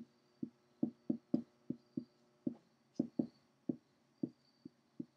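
Dry-erase marker tapping and ticking on a whiteboard as a Chinese character is written stroke by stroke: about a dozen short, uneven taps, two or three a second.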